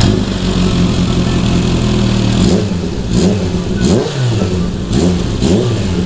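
Kawasaki Z H2's supercharged inline-four idling through an Akrapovič slip-on muffler for about two seconds, then given about five quick throttle blips, the revs rising and dropping back each time.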